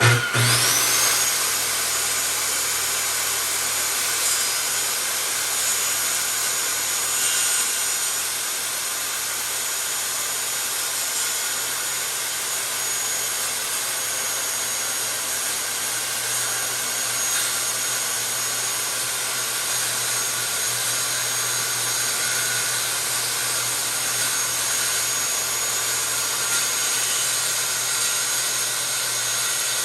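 Electric power saw switched on, its motor whine rising quickly to speed, then running steadily and loudly as it cuts wood for a speaker box.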